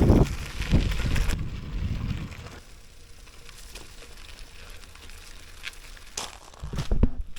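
Giant Escape 3 bicycle's tyres rolling on a gravel road with wind buffeting the microphone, fading after about two and a half seconds as the bike slows. A few thumps near the end, the loudest about seven seconds in.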